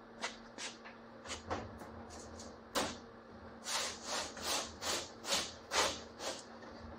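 Large thin aluminium skin sheet being handled and slid across a steel table at a sheet metal brake: a few knocks, the loudest about three seconds in, then a run of scraping swishes about two a second, over a steady low hum.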